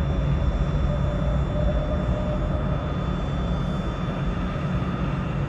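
Boeing 777 auxiliary power unit, a small gas turbine in the tail cone, running with a steady low rumble and a thin, steady whine above it.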